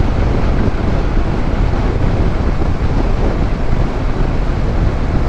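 Steady rush of wind noise on the rider's microphone, with motorcycle and road noise underneath, while riding at highway speed.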